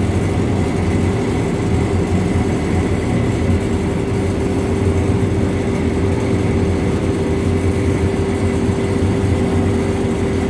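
Carpet air-extraction and packaging machine running steadily: a constant motor hum with a steady tone held through, no change in speed.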